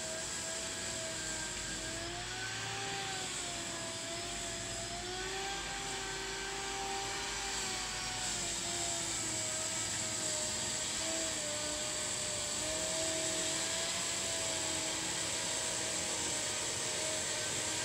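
Worx electric lawn dethatcher running while being pushed across the lawn, its motor giving a steady whine as the tines rake through the thatch. The pitch wavers slightly up and down, and the sound grows a little louder in the second half.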